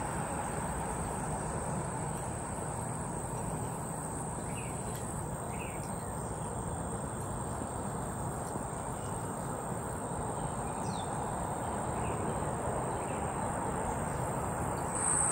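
Outdoor summer ambience: insects keep up a steady, high, thin drone over a steady low background noise, and a few faint short bird chirps come and go.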